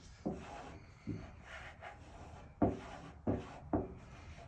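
A squeegee rubbing across a vinyl decal to press it onto a truck tailgate, in about five short strokes.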